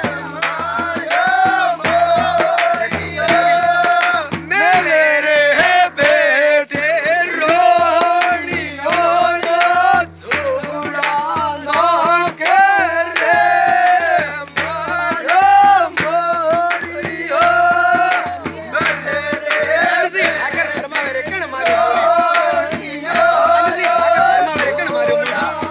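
Men singing a Rajasthani fagan, a Holi folk song, to a steady beat on a chang frame drum.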